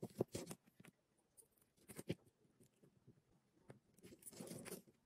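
Light clicks and clinks of small metal jewellery findings handled with needle-nose pliers while a jump ring and split key ring are fitted: a quick cluster of clicks at the start, a couple more around two seconds, and a brief scraping rustle a little past four seconds.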